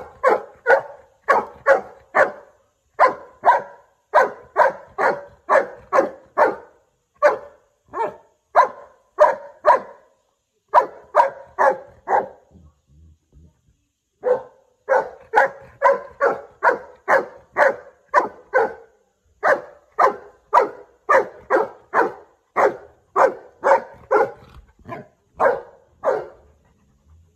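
Golden retriever barking in a long run of short, rapid barks, about two a second, broken by a pause of about two seconds midway.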